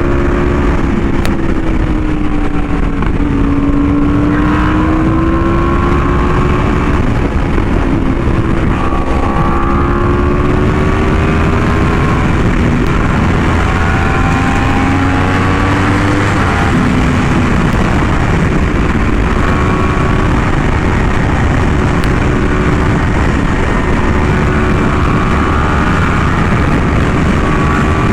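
Yamaha R1M's crossplane inline-four running through an SC Project exhaust while riding at a steady, easy pace, its pitch drifting gently up and down with the throttle. A dense low rumble of wind noise runs underneath.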